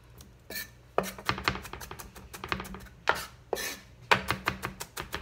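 Chef's knife chopping garlic cloves on an end-grain wooden cutting board: quick runs of knife taps on the wood, starting about a second in.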